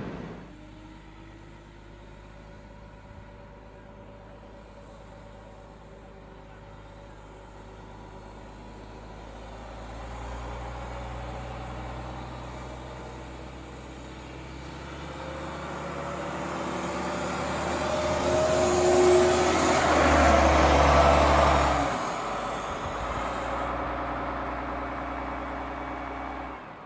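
A bus's engine running, building up and rising in pitch as it accelerates, loudest about twenty seconds in, then dropping suddenly back to a steadier, quieter run.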